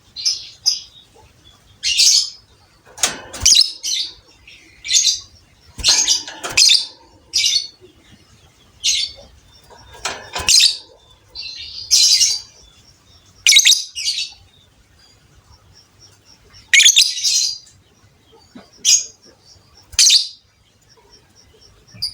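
Lovebird giving short, high, harsh chirps in irregular bursts, roughly one or two a second with a short lull in the middle.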